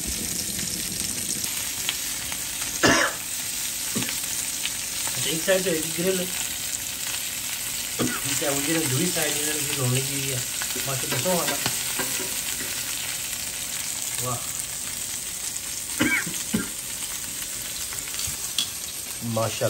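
Chicken pieces frying on a cast-iron griddle pan over a gas flame: a steady sizzling hiss, with a few sharp clicks.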